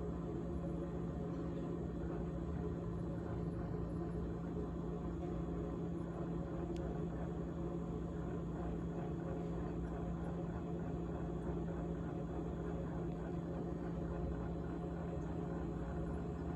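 GE GTH18XCTZRBB refrigerator running with a steady low hum and a continuous fast rattle over it.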